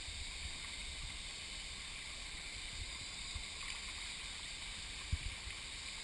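Shallow stream rushing over rock slabs and a small cascade, a steady watery hiss, with one dull thump about five seconds in.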